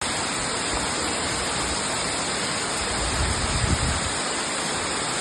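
Karmon waterfall: water falling and rushing with a steady, even roar. A brief low rumble stands out a little past three seconds in.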